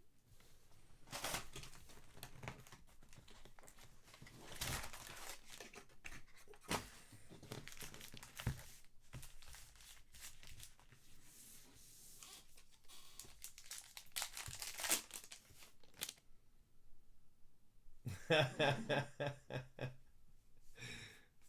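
Trading card packs being torn open by hand, with wrappers crinkling and rustling in irregular bursts and a quiet pause about three quarters of the way through.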